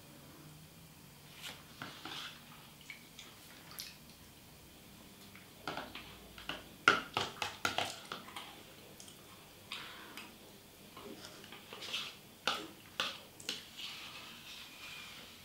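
Spoon clicking and scraping against a small dessert cup, with wet chewing and lip sounds of someone eating. A quick run of sharp clicks about halfway through is the loudest part, with another run near the end.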